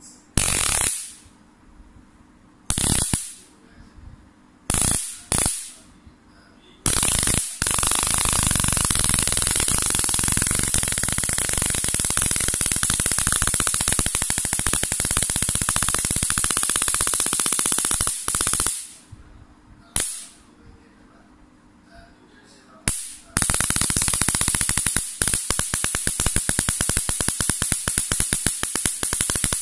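Electric arc from a battery-powered homemade high-voltage generator jumping from a wire to an aluminium heatsink. It crackles in a few short bursts, then buzzes loudly and continuously from about seven seconds to eighteen seconds in. After two more short bursts it crackles steadily again from about twenty-three seconds in.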